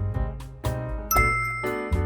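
Background music: a jazzy piano tune over a bass line, with a bright bell-like ding ringing out about a second in.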